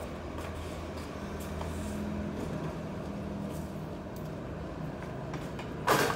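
Steady low mechanical hum with a faint hiss. A sudden, louder clatter begins near the end.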